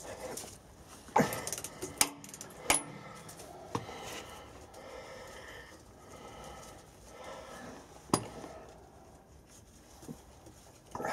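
Steel hand tools clinking and knocking against the connecting rod and its bearing cap inside a Sentinel steam wagon engine's crankcase, as a ratchet and socket work on a big-end bolt. A handful of separate sharp metallic clinks, the loudest a little over a second in, at about two seconds, near three seconds and again around eight seconds in.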